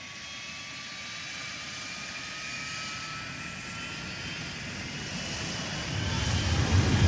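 Jet aircraft engine whine, a few steady tones slowly rising in pitch over a rushing noise, growing gradually louder. A deeper rumble builds near the end.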